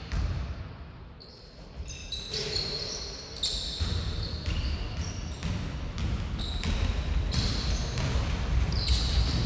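Basketball play on a wooden gym floor: the ball bouncing with dull thuds, and players' shoes squeaking in many short, high squeaks as they run and cut, from about two seconds in.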